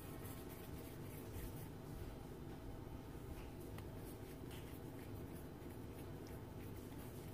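Faint soft rubbing and light patting of flour tortilla dough as it is tucked and turned into balls by hand, with occasional small taps, over a low steady hum.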